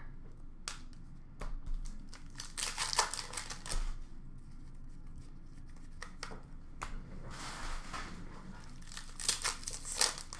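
Trading cards and foil pack wrappers being handled: irregular crinkling and rustling with small clicks, in a busier stretch near the end.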